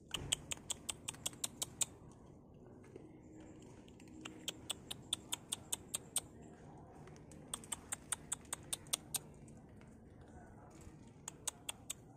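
Stray cats crunching dry cat food: runs of sharp, evenly spaced crunches, about five a second, coming in four bouts of under two seconds each.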